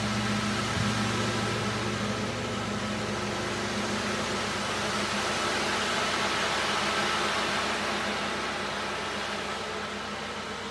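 Large gong struck with a soft felt mallet right at the start: deep tones come in at once and a shimmering wash of overtones swells over the next several seconds, then rings on.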